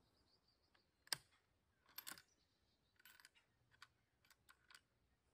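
Bolt of a .223 Remington bolt-action rifle being worked after a shot to extract the spent case: a sharp metallic click about a second in, then short sliding sounds and a run of lighter clicks.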